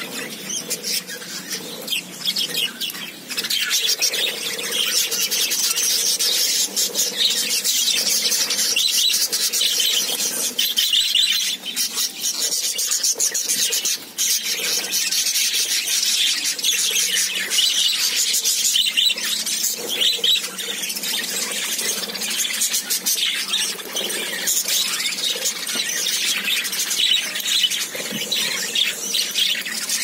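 A flock of budgerigars chattering all at once: a dense, unbroken stream of high chirps, warbles and squeaks.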